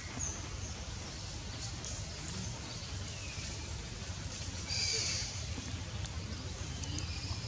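Outdoor tree-canopy ambience of steady low hum and hiss, with scattered bird calls. There is a short high chirp at the start, a falling whistle about three seconds in and again near the end, and a brief, louder high call about five seconds in.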